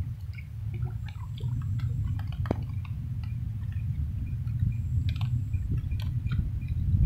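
Ambience from a small boat on a river: a steady low rumble with scattered faint ticks, clicks and drips.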